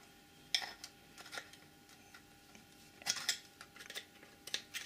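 Small screwdriver prising at the plastic clips of a BMW GM5 module's housing: a handful of sharp plastic clicks and taps, spread out with short gaps, as the clips are popped loose.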